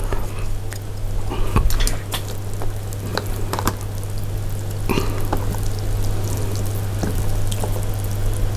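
Noodles and soup being stirred and mixed in a plastic tray: wet sloshing and dripping, with scattered light clicks of the utensil against the container, over a steady low hum.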